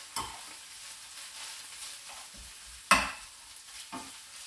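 Ginisang talong (garlic, onion, ground chicken and eggplant) frying in a pan with a faint steady sizzle, while a utensil stirs it and knocks against the pan three times, the sharpest knock about three seconds in.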